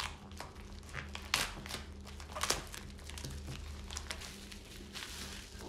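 Shiny plastic packaging crinkling as hands unfold and open it, in irregular crackles with a few louder snaps.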